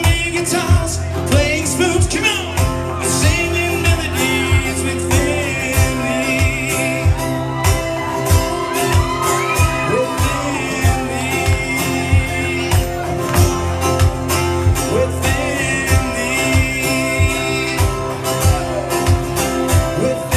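Live band performing a song: a man singing into a microphone over guitars, with a steady beat of about two beats a second.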